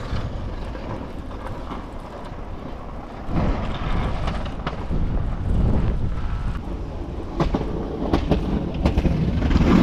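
Plow truck pushing snow, its Boss stainless-steel 9.2 plow blade scraping the pavement, over a steady low rumble of the engine with a few scattered knocks.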